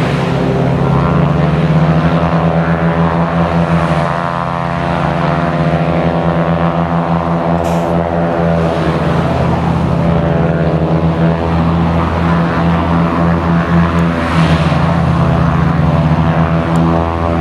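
Light aircraft's piston engine and propeller running steadily, the pitch easing down and back up slightly a couple of times.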